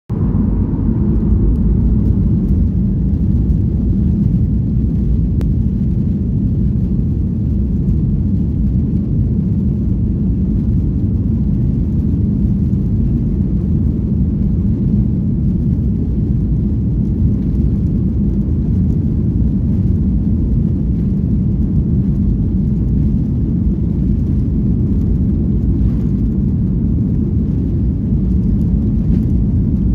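Airliner's jet engines heard from inside the cabin while the plane is on the ground, as a steady low rumble.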